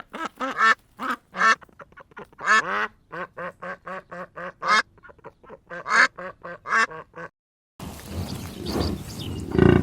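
Duck quacking in quick runs of short, harsh calls, several a second, which stop abruptly about seven seconds in. After a short gap, a steady background hiss follows with a louder low animal call near the end.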